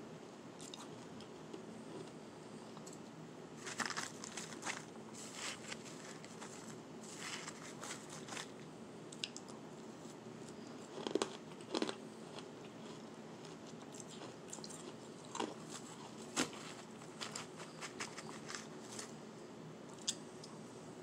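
Close-miked biting, crunching and chewing of powdery shaved ice: irregular bursts of soft and hard crunches, with the loudest pair about halfway through.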